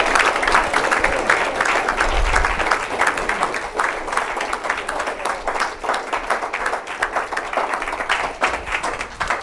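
Audience applauding: dense clapping that thins out and fades toward the end.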